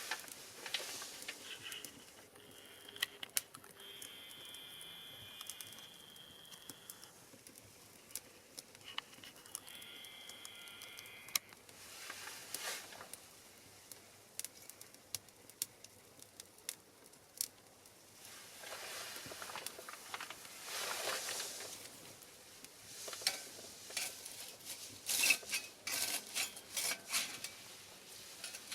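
Pine cones and cherry branches burning, crackling with many sharp pops and snaps and swells of hissing, the snapping densest and loudest in the last few seconds. A high steady whistle sounds twice in the first half.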